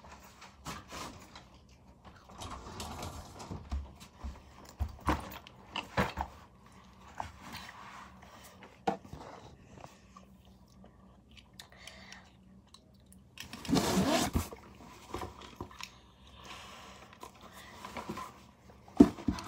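Objects being handled: scattered clicks, knocks and rustling, with a louder burst of rustling close to the microphone about two-thirds of the way through.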